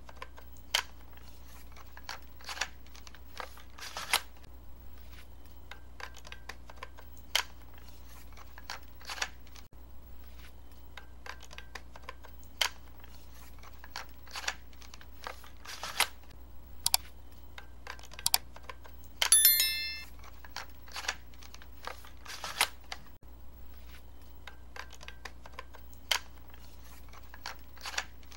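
Plastic parts of a small transforming robot car toy clicking and snapping as they are folded and pressed into place: irregular sharp clicks, with one brief louder squeak about two-thirds of the way through.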